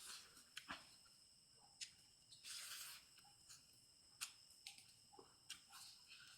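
Near silence: room tone with faint scattered clicks and a short soft rustle about two and a half seconds in.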